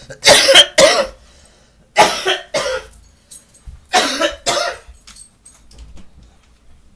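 A person coughing hard in four separate fits over the first five seconds, then only faint small knocks.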